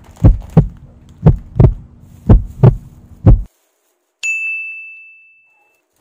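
Heartbeat sound effect: pairs of deep thumps about once a second over a low hum, stopping abruptly about three and a half seconds in. Then a single bright ding rings out and fades over about a second and a half.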